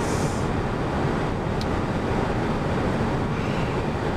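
Steady road noise inside the cab of a moving truck, with one faint click about a second and a half in.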